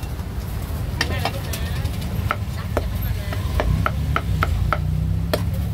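Cleaver chopping roast duck on a thick round wooden chopping block: about a dozen sharp chops that quicken to about three a second in the middle.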